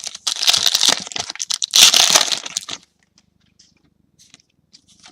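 Foil wrapper of a trading card pack crinkling and tearing as it is opened, for nearly three seconds, followed by a few faint ticks of card handling.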